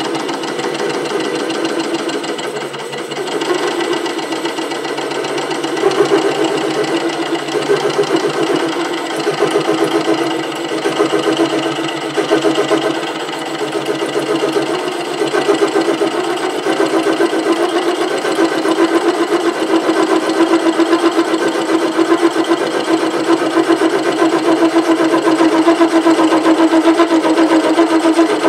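SC2 mini lathe running, its cutting tool facing a 3-inch aluminium block with a fast, even pulsing over a steady hum. This is an interrupted cut across the uneven face, with chatter. The sound grows louder in the second half.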